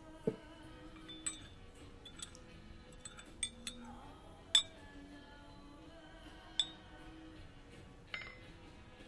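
A metal spoon stirring coffee in a ceramic cup, clinking against the cup about seven times at uneven intervals, the loudest clink about halfway. There is a duller knock just after the start, as a glass sugar pourer is set down on the table, and soft background music throughout.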